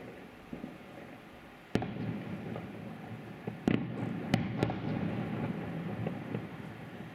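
Aerial fireworks shells bursting at a distance. A sharp bang comes about two seconds in, then a rolling rumble, with three more sharp reports in quick succession around the middle.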